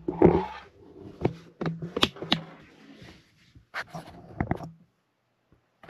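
Handling noise from a camera being picked up and moved: a loud rustle at the start, then a series of short knocks and clicks.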